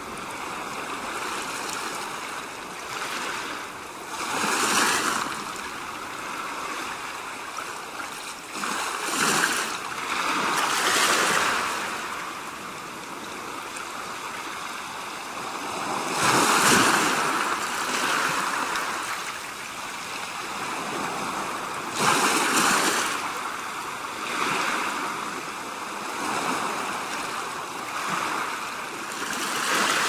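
Ocean waves washing against rocks: a steady rush of surf that swells and falls back every few seconds.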